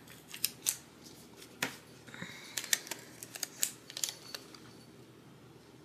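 Light crackling and small clicks of a paper planner sticker being peeled and worked between the fingers, irregular for about four seconds, then stopping.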